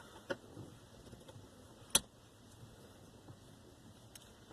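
Quiet handling noises: a small click near the start and a single sharp click about two seconds in, with a few faint ticks after.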